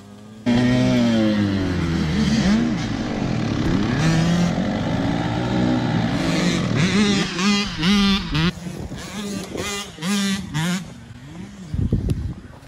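Motocross dirt bike engines revving, the pitch rising and falling over and over. It starts suddenly about half a second in.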